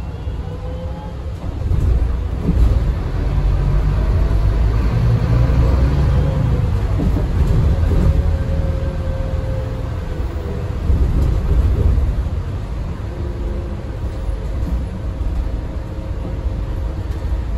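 Scania K320UB hybrid bus heard from inside the passenger saloon: a steady low rumble from its Scania DC9 five-cylinder diesel and driveline as it runs along. The rumble swells about two seconds in and again about eleven seconds in.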